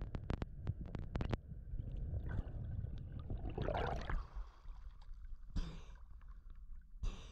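A spearfisher surfacing from a breath-hold dive: sharp underwater clicks in the first second or so, then water rushing as he breaks the surface about four seconds in. It is followed by two short, sharp recovery breaths.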